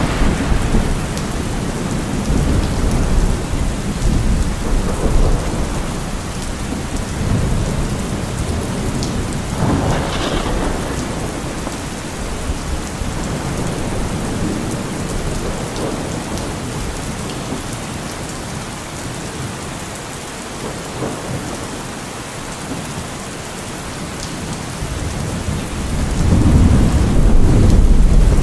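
Steady rain with rolling thunder: a rumble dying away in the first seconds, a sharper peal about ten seconds in, and a long rumble building near the end.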